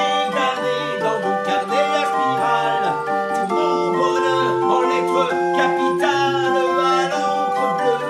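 Barrel organ (Odin 27-key, flute and reed pipes) playing a melody of long held notes over a steady bass accompaniment, with a man's voice singing along over it.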